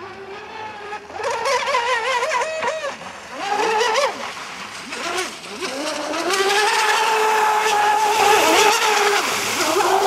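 Electric RC speedboat's motor and propeller whining, its pitch wavering up and down with the throttle for the first few seconds. From about six seconds in it holds a steady, louder high whine with a hiss over it as the boat runs fast.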